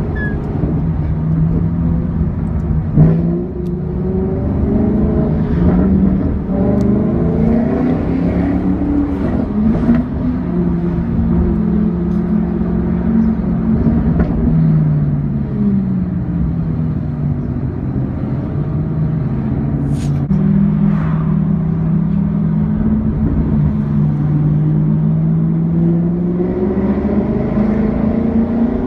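Car engine heard from inside a moving car's cabin over road rumble, its note climbing and dropping again and again as it accelerates and changes gear, then holding steady for several seconds late on. There is a brief loud knock a few seconds in and a short sharp click later.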